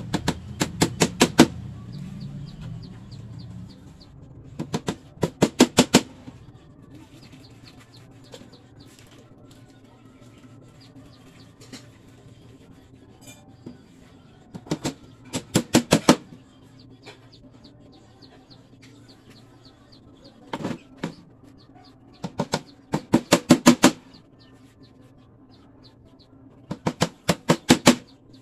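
Small hammer driving nails into a wooden egg-setter frame: six bursts of about five to eight quick blows each, the blows growing louder within each burst.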